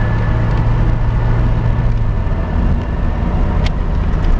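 Ford Mustang's engine and road noise heard from inside the cabin while cruising on the highway, a steady drone that drops a little in pitch just over halfway in. A single sharp click sounds about three-quarters of the way through.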